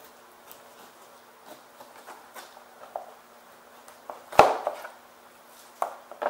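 Fillet knife cutting along a channel catfish's backbone to free the fillet: soft slicing and scraping with small taps on a plastic cutting board, and one sharp louder knock about four seconds in.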